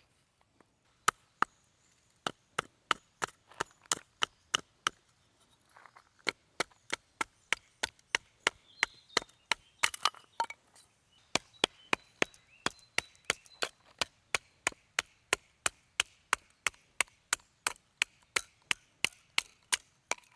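Steady chopping: a blade striking wood about three times a second, with a short pause partway through.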